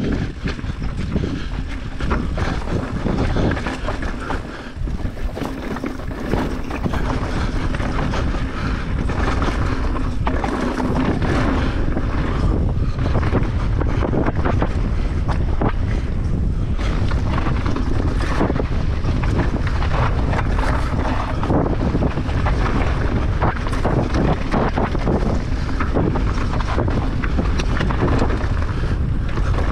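Wind buffeting the camera microphone over the rumble of a mountain bike's tyres on a rocky dirt trail, with frequent short clatters as the bike rattles over rocks.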